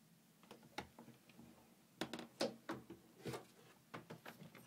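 Scattered light clicks and knocks at an irregular pace, the loudest cluster about two seconds in; the engine is not running.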